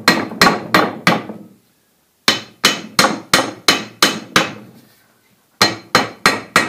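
A mallet tapping repeatedly on the metal casing of a multistage well pump, at about three blows a second, each blow ringing briefly. The blows come in three runs with short pauses between, knocking the pump housing loose so it can be pulled off.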